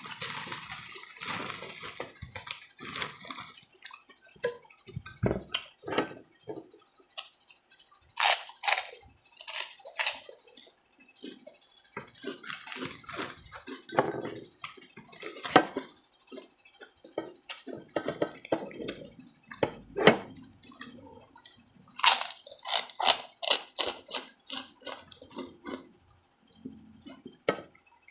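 A person eating close to the microphone: chewing and smacking the lips in short irregular clicks, with faster runs of them about a third of the way in and again near the end.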